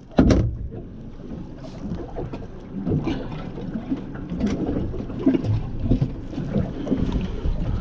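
Low wind and water rumble on a small fishing boat, with scattered light rustles and knocks from a red snapper being handled in a landing net. A short loud knock comes right at the start.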